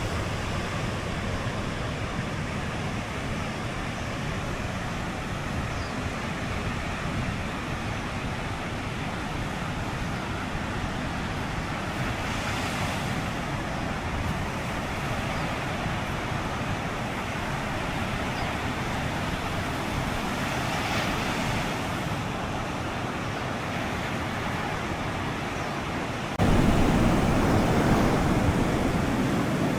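Ocean surf washing onto a beach: a steady rush of waves that swells twice along the way. Near the end a sudden louder, deeper rush sets in.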